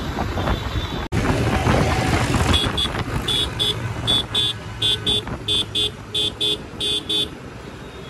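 A vehicle horn honking in quick double beeps, about seven pairs in a row, over the running motorcycle engine and wind rush of riding on a highway.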